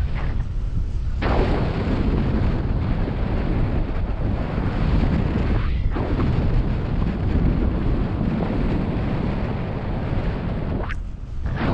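Wind rushing and buffeting over the camera microphone of a paraglider in flight, loud and steady, with short lulls about a second in, near the middle, and near the end.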